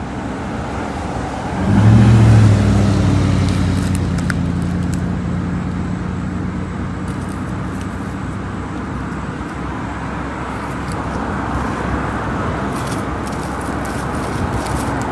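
Road traffic noise. A deep, steady vehicle engine hum comes in sharply about two seconds in and slowly fades.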